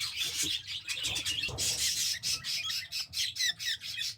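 Baby budgies squawking and chirping in rapid, high-pitched calls while being handled in the nest.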